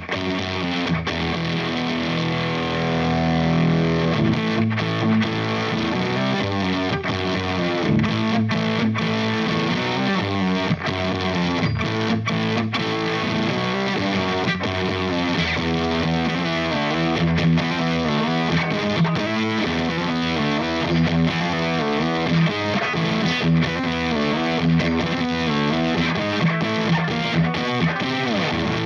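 Electric guitar played through the Valco Bloodbuzz drive/fuzz pedal with the fuzz stacked into the drive: heavily distorted chords and riffs played without a break.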